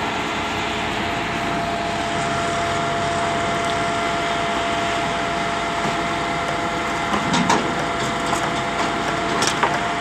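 Truck-mounted concrete pump running: a steady drone from its engine and hydraulics with a constant whine, and a few short knocks near the end.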